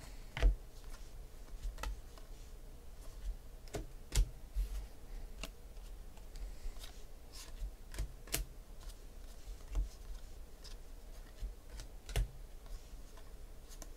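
Football trading cards being flipped through by hand in a stack: irregular soft clicks and slaps of card on card as each one is slid off the pile.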